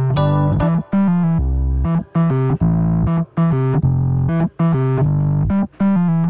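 Background music: a keyboard plays a series of chords, each held briefly, with short breaks between them, and the music cuts off suddenly at the end.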